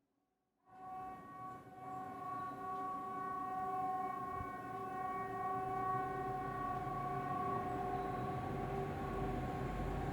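Swedish outdoor civil defence siren ("Hesa Fredrik") sounding its warning signal as a test: a steady chord of several tones that comes in about a second in and holds without rising or falling.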